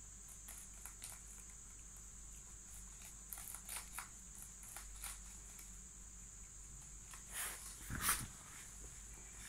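Soft handling noises as rabbits are stroked in a wire cage: faint rustles and small clicks, with a louder rustle about eight seconds in, over a steady high-pitched hiss.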